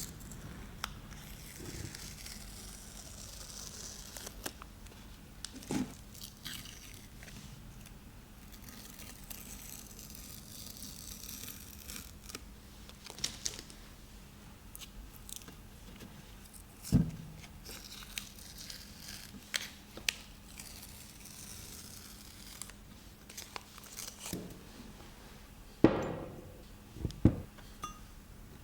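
Hands working on the vise at a bench: intermittent rustling and scraping with scattered clicks and sharp knocks, the loudest knock about halfway through and two more near the end.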